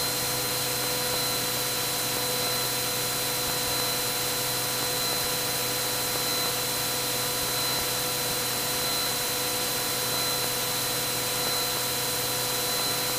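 Cabin noise of a Cessna 182 with a Continental IO-550 six-cylinder engine and propeller at cruise-climb power, 25 inches and 2500 rpm: a steady hiss with a constant hum of several steady tones that does not change.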